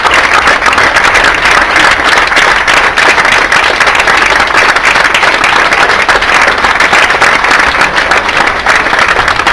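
Audience applauding: many hands clapping loudly and steadily without a break.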